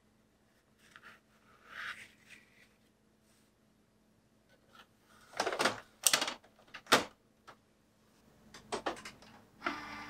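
Epson inkjet printer being loaded: a sheet of paper slid softly into the paper tray, then the plastic paper cassette pushed home with several sharp clacks. Near the end the printer's feed mechanism starts up with a steady whir.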